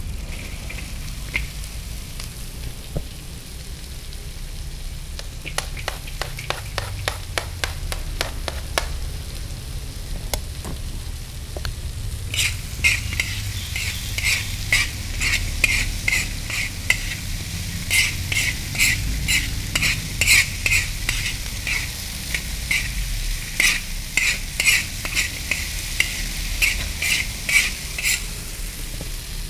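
Chopped long beans, potatoes and dried anchovies sizzling in a large wok while a metal spatula stirs them. A run of quick clicks comes first, then, from before halfway, rhythmic scraping strokes of the spatula on the wok, about two or three a second.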